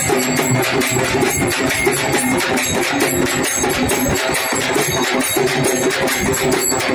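Brass hand cymbals (taal) clashed in a fast, steady beat for devotional bhajan dancing, with a group of voices chanting along.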